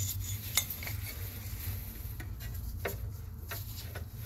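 Metal clicks and clinks of a pair of vice grips (locking pliers) being handled and brought onto the steel rear lower control arm by the ball joint. About four sharp, separate clicks spread over a few seconds.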